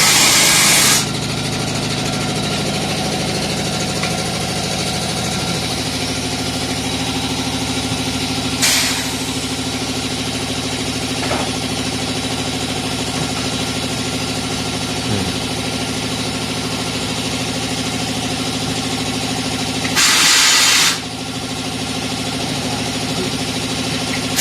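Shop air compressor running with a steady hum, broken by short hisses of compressed air, about a second each, three times.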